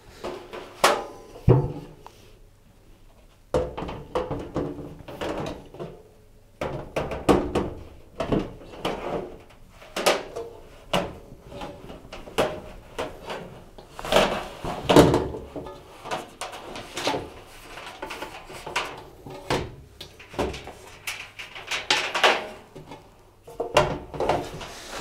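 Steel drum of a Hoover tumble dryer being manoeuvred back into the cabinet: a long run of irregular metallic clunks, knocks and scrapes as it bumps against the casing.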